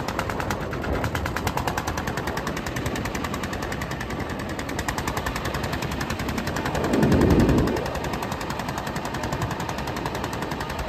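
Engine of a small motorised river ferry boat chugging with a rapid, even knocking beat, with a brief louder rush of noise about seven seconds in.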